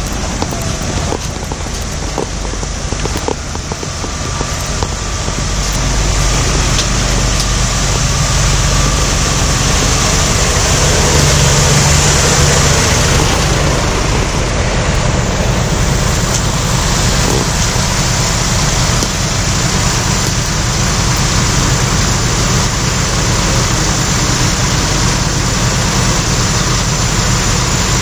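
Diesel engines of parked buses and trucks idling: a steady low engine hum under a broad hiss, growing louder a few seconds in and then holding steady.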